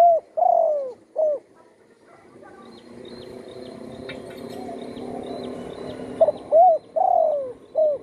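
Spotted dove cooing: two of its multi-note phrases, each built around a long falling coo. The first phrase is already under way at the start, and the second begins about six seconds in. Between them a steady low hum builds, with faint rapid ticking above it.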